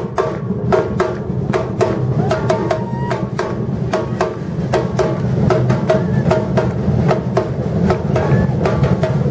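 Batucada samba percussion ensemble playing: deep surdo bass drums under a fast, even run of sharp strikes, about four or five a second. The low drums come in right at the start.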